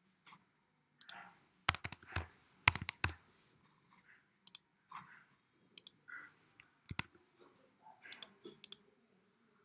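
Computer mouse clicks and keyboard keystrokes: a dozen or so sharp, irregular clicks, loudest in a quick cluster about two to three seconds in.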